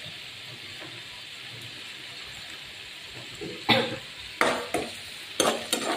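Sliced red onions sizzling softly in oil in a nonstick frying pan. From a little past halfway, a utensil stirs them, scraping and knocking against the pan in several quick strokes.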